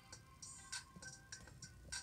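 Faint music with sharp percussion ticks, played through a small round speaker driver fitted in a Lego car model.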